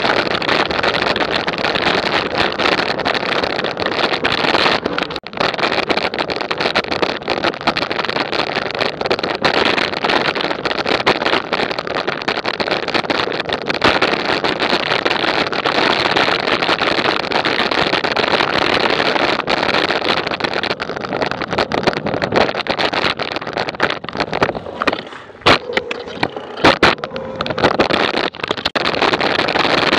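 Steady loud rush of wind and motion noise on a moving action camera's microphone during a ride. It eases off briefly near the end, with a few sharp clicks.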